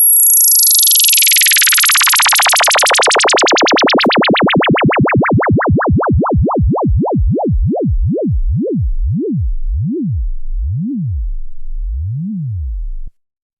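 Synthesized DJ sound effect: a single electronic tone wobbling up and down in pitch, the wobble very fast and high at first, then slowing and sinking steadily lower until it cuts off abruptly near the end.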